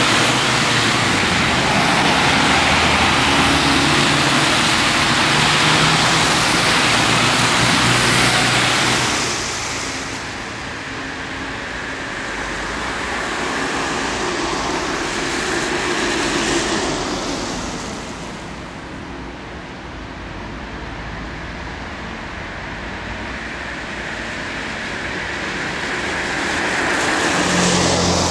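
Road vehicles driving past, engine and tyre noise. It is loud for about the first nine seconds, then drops, with further vehicles swelling past around the middle and again near the end.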